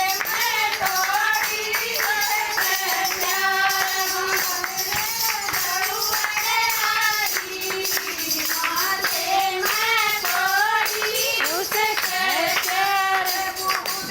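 A bhajan (Hindi devotional song) being sung to jingling hand percussion that keeps a steady beat.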